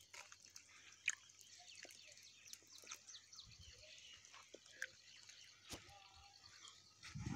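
Faint outdoor ambience after rain: scattered soft ticks and chirps over a light hiss, with a brief low rumble near the end.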